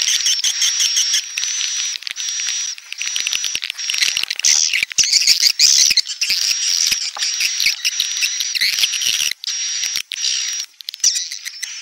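Swiftlet call recording: edible-nest swiftlets chattering and twittering densely and without pause, high-pitched, over a steady high tone, with a few short breaks.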